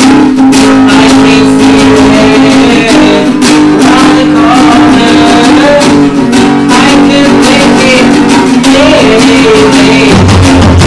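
A small band playing an instrumental stretch of a rock song: acoustic guitar strumming over electric bass and an electronic drum kit, with no lyrics sung. A long low note is held through most of it, and near the end the bass and drums come in heavier.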